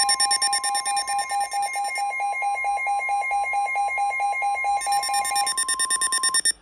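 Emergency Alert System attention signal: two steady alert tones sounding together, the lower one cutting off about a second before the higher one near the end, just ahead of a severe thunderstorm warning broadcast.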